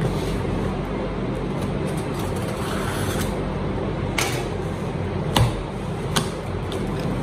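A cardboard parcel being opened by hand: packing tape cut and peeled off the box, with a few sharp taps and knocks from the box and the knife on the table, the loudest about five and a half seconds in. A steady hum runs underneath.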